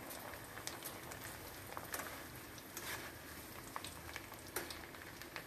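Hot oil sizzling in a steel kadai as a batch of flakes deep-fries in a mesh strainer, with scattered light crackles and pops.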